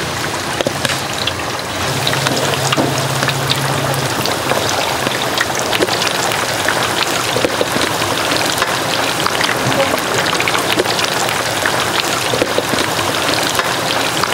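Battered chicken deep-frying in a wide pan of hot oil: a steady, dense sizzle and crackle of bubbling oil. A low steady hum sits under it in the first few seconds.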